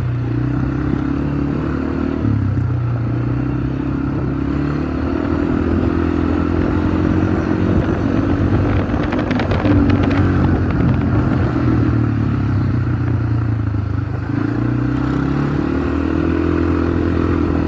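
ATV engine running at speed, its note stepping up and down several times with the throttle, heard from on board the moving quad. A brief clatter of rattling comes about halfway through.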